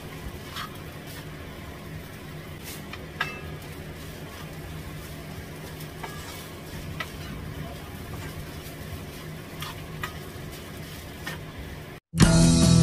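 Fried rice being stirred with a wooden spatula in a nonstick wok: a steady sizzle with scattered light taps and scrapes of the spatula against the pan. About twelve seconds in it cuts off, and loud music starts.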